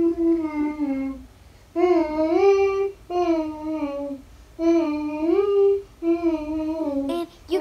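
A young girl's voice singing a wordless tune in short phrases of about a second each, with brief pauses between them.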